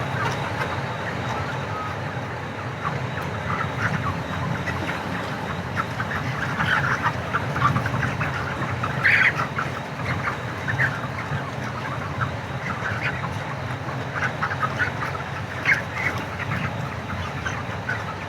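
A large flock of broiler chickens in a poultry shed, giving a continuous din of many overlapping short calls, over a steady low hum.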